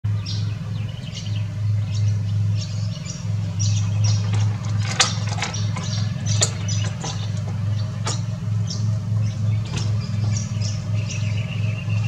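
Small birds chirping in quick, short notes, with a few sharp clicks about five, six and a half and eight seconds in. Under them a steady low hum pulses about twice a second.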